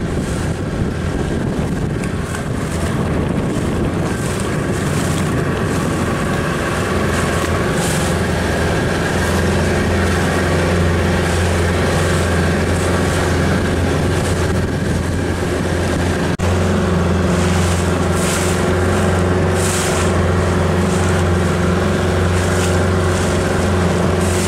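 Small outboard motor driving an inflatable dinghy at steady speed, a constant low hum over the rush of water and wind noise.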